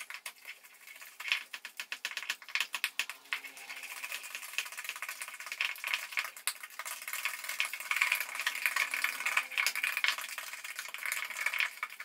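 A spoon stirring and beating in a glass mixing bowl, working a whisked egg into creamed butter and sugar: quick, uneven clicks and scrapes against the glass that grow busier about four seconds in.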